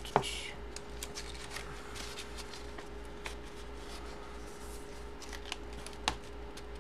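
Paper rustling and crinkling as a manila envelope is handled and a folded paper card inside is pulled out and unfolded, with scattered light clicks, one sharper near the start. A steady faint electrical hum runs underneath.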